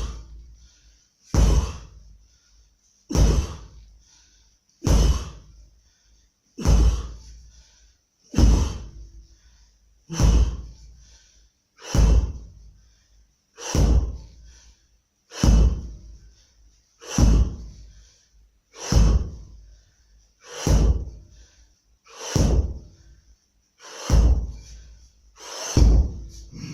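Repeated swings of a 12 kg training mace (a sledgehammer-style club), one heavy whooshing hit about every second and three quarters, fifteen in a row at an even pace.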